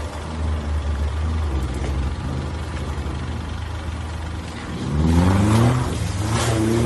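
A 4x4 SUV's engine running, then revving up hard twice as the vehicle drives into a river, with water splashing around it near the end.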